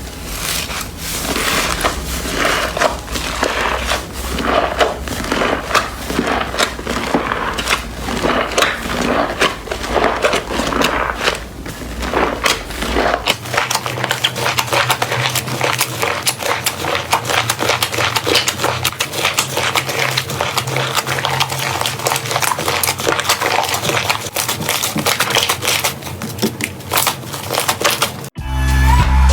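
Slime being squeezed and pressed by hand: a dense run of crackling, popping clicks. Music starts in the last second.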